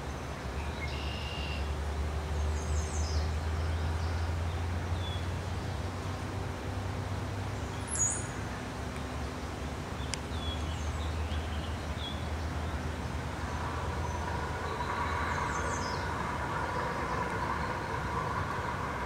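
Steady low rumble of distant vehicle noise, with a few short, high bird chirps scattered over it. About two thirds of the way in, a higher wavering hum joins the rumble.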